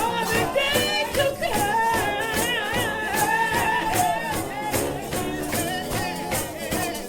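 Trombone shout band playing an up-tempo 4/4 shout, the horns' wide vibrato over a steady, fast beat of drums and cymbals.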